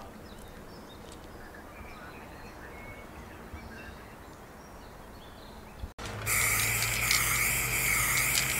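Quiet open-air background with a few faint bird chirps. About six seconds in it cuts abruptly to a much louder machine sound, a steady low hum under a high, slightly wavering whine.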